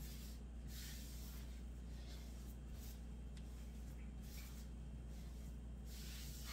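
Soft, irregular swishes of hands kneading sourdough dough against a flour-dusted wooden counter, over a steady low hum.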